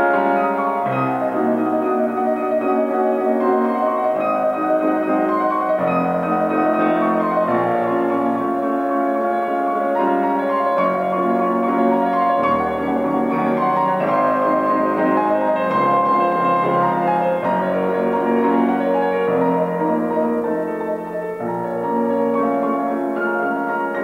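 Solo grand piano playing a waltz, with a new low bass note about every second and a half beneath sustained chords and a melody.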